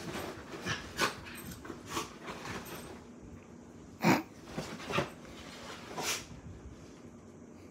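Samoyed puppy making a string of short dog noises while playing, about nine in all, the loudest about four seconds in.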